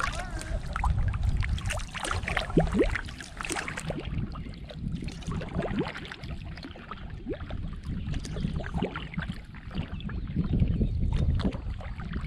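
Kayak paddle strokes: water splashing and dripping off the blades in short splashes and plinks, over a steady low wind rumble on the microphone.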